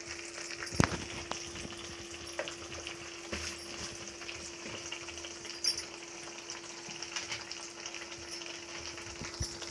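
Ground onion-garlic-tomato masala sizzling in hot oil in a kadai while a metal spatula stirs it, scraping and tapping against the pan, with one sharper tap about a second in. A steady low hum runs underneath.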